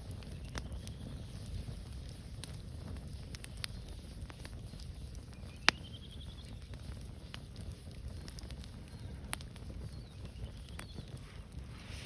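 Wood campfire burning, with scattered sharp crackles and one loud pop about halfway through, over a low rumble.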